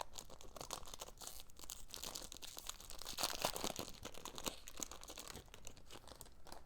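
Foil wrapper of a Pokémon booster pack crinkling and tearing as it is opened by hand, a steady run of small crackles.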